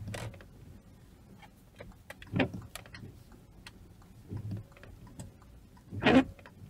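Inside a car creeping slowly over fresh snow: a low, quiet hum of engine and tyres, with faint clicks and a few short louder sounds, the loudest about six seconds in.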